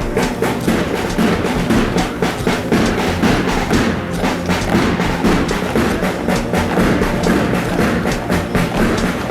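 Parade band music with a steady, quick drumbeat, a march.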